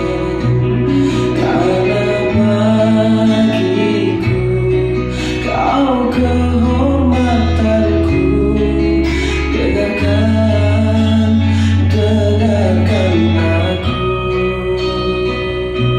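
A recorded pop song with a male singing voice over guitar and a steady bass line, played back through a home-theatre amplifier and speakers.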